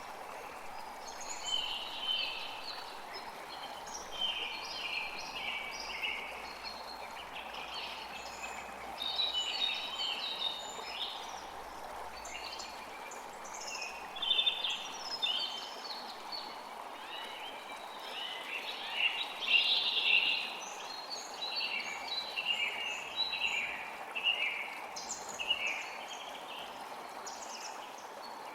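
Many small birds chirping and calling in quick short phrases over a steady rush of creek water.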